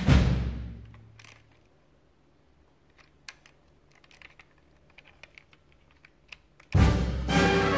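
Background music fading out in the first second or so, then faint scattered clicks and taps of a plastic toy police car being picked up and turned over in the hands; the music comes back in loudly near the end.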